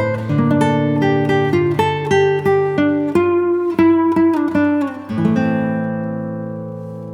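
Background music: plucked acoustic guitar playing a quick melody over a bass line, ending on a chord left ringing and fading over the last couple of seconds.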